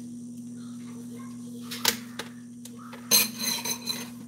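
Kitchenware handled on a counter: a single sharp knock about two seconds in, then a louder run of clinks and clatter with a short ringing note about three seconds in, over a steady low hum.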